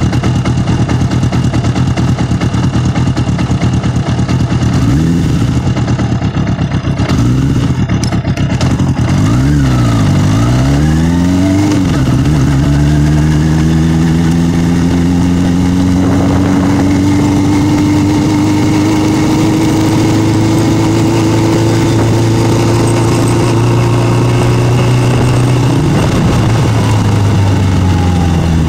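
Motorcycle engine running at low revs with a few small throttle blips. About nine seconds in, its pitch dips and climbs several times in quick succession as it pulls away through the gears. It then rises slowly and steadily under a long pull until the revs drop off near the end.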